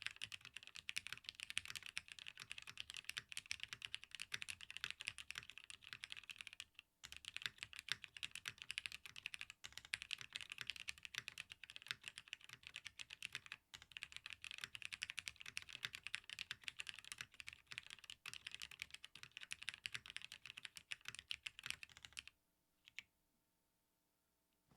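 Fast, continuous typing on a Geon W1-AT mechanical keyboard: plateless, tadpole-mounted 1.2 mm PCB, machine-aged Cherry MX Hyperglide Black linear switches and PBT keycaps. The typing pauses briefly a few times, then stops a couple of seconds before the end after one last keystroke.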